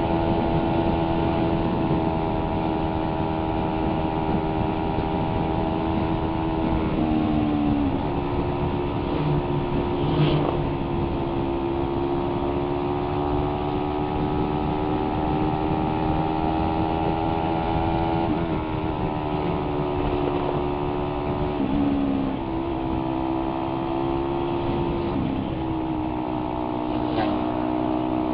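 Suzuki Raider 150's single-cylinder four-stroke engine running under way as the motorcycle cruises. Its note steps down in pitch a few times and climbs back.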